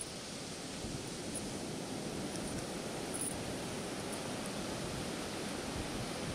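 Steady wash of ocean surf breaking on a sandy beach, mixed with wind.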